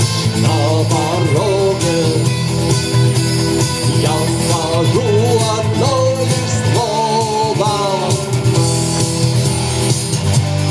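Amateur rock performance: guitars and drums under a wavering lead melody line.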